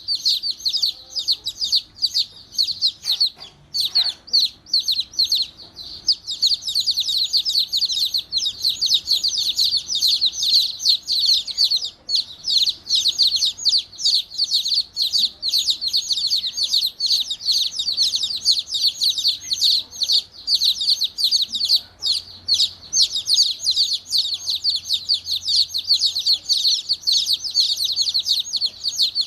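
A group of baby chicks peeping loudly and without pause, many short, high chirps overlapping one another, a little sparser for the first few seconds and then denser.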